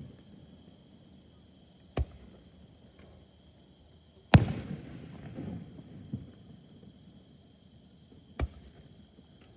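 Aerial fireworks shells bursting: separate bangs about two seconds in, a louder one a little after four seconds trailing off in a low echo, a faint one around six seconds, and another near the end.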